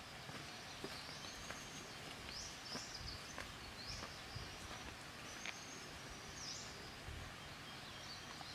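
Faint outdoor ambience with a bird giving short, rising, high chirps every second or so, and faint footsteps on a dirt path as two people walk away.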